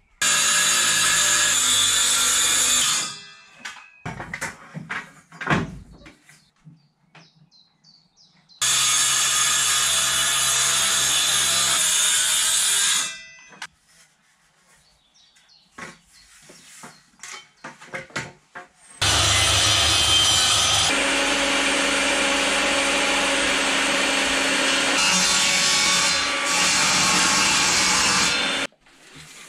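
Power tools cutting wood in three runs of several seconds each, with knocks and handling noises between them. The last and longest run, starting about two-thirds of the way in and stopping abruptly just before the end, is a Bosch table saw ripping a long board.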